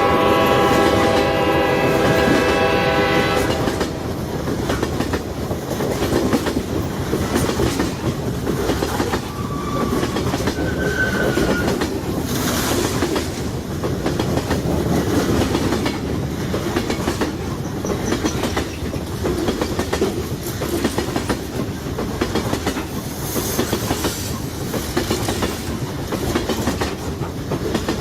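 Freight train's air horn sounding a steady chord that stops about three and a half seconds in, then the train's cars rolling past at speed with continuous rail noise.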